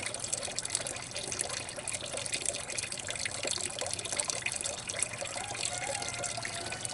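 Flushed toilet water running steadily out of the end of a sewer drain pipe and splashing into a bucket as the flush drains through the line.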